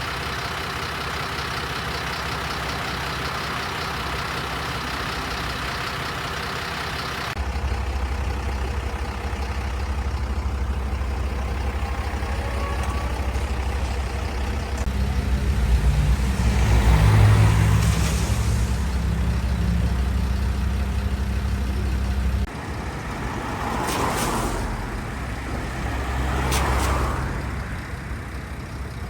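Road vehicles running, with a steady engine rumble and several vehicles passing by, in a few abruptly cut segments.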